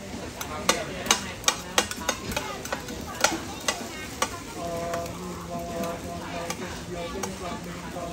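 Metal utensils clanking and scraping against a wide, flat frying pan as fried carrot cake (chai tow kway) is tossed, over the steady sizzle of frying oil. The clanks come quickly, about ten of them in the first half, then ease off while the sizzle goes on.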